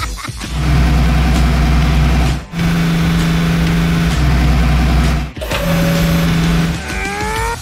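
Engine sound effect for a toy construction vehicle, running steadily and breaking off briefly twice, with a rising whine near the end.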